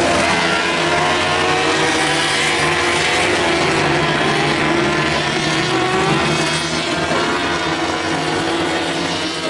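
Several racing motorcycles passing at speed, their engines overlapping with pitches that keep rising and falling as they accelerate and change gear.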